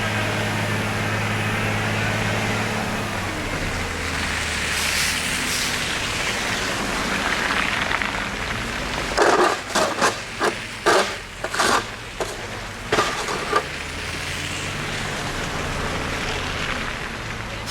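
A vehicle engine idling with a steady low hum that fades after about three seconds, over street traffic noise. About halfway through comes a run of about ten short, sharp sounds over some four seconds.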